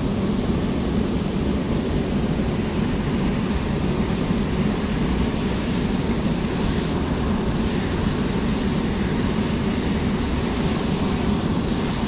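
Steady rush of fast-flowing river water, a constant low rumbling noise.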